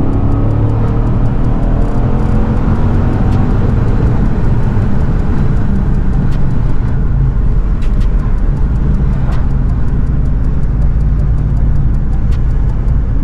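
2021 Nissan Titan Pro-4X's 5.6-litre V8 running through true dual exhausts with an X-pipe and Flowmaster Super 10 mufflers, heard from inside the cab with the windows cracked and the back window open. The exhaust climbs in pitch as the truck accelerates through the first couple of seconds, then settles into a steady cruise mixed with wind and road noise.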